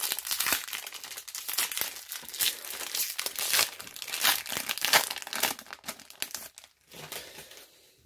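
Foil Yu-Gi-Oh booster pack wrapper being torn open and crinkled by hand, a dense crackling that dies down after about six seconds.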